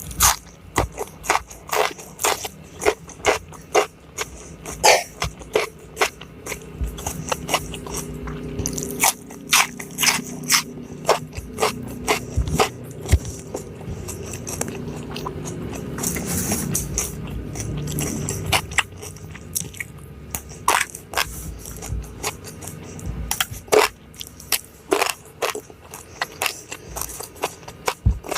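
Close-miked eating: repeated crisp, crunchy bites and chewing of food, in quick clusters of sharp crunches with a softer stretch of chewing in the middle.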